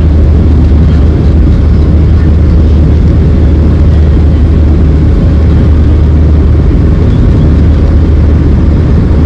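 Steady, loud low drone of a Boeing 737-800 cabin in flight: engine and airflow noise with no change in pitch or level.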